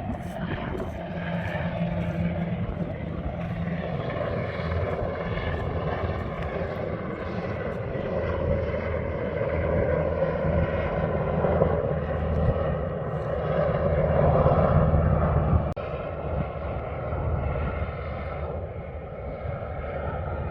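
A steady engine drone that builds to its loudest about three quarters of the way through, then drops off abruptly.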